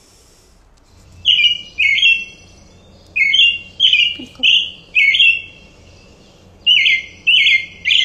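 American robin song: short, clear whistled phrases starting about a second in, coming in runs of two to four with brief pauses between the runs.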